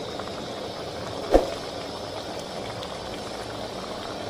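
Rohu fish curry bubbling at a vigorous rolling boil in a kadai over a raised flame, a steady crackling bubble. A single sharp knock sounds about a second and a half in.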